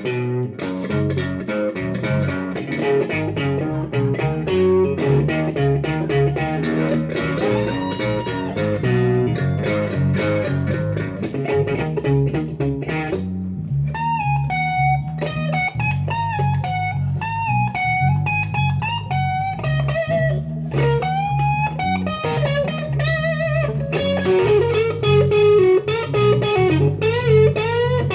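Live blues-rock electric guitar and electric bass playing together, with a steady bass line underneath. For about the first half the guitar plays busy, dense parts; then, from about halfway, it plays single-note lead lines with string bends.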